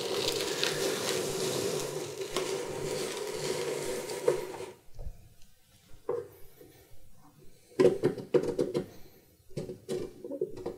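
Vistarama Mark II episcope being slid back across a surface: a steady scraping slide for about five seconds that stops suddenly, then scattered knocks and bumps as it is handled.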